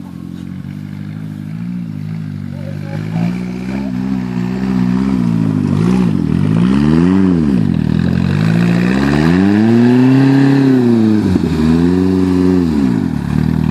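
Sporting trial car's engine working on a grass hill section, the revs rising and falling in several long swells as the driver feeds the throttle. The engine grows steadily louder as the car comes closer.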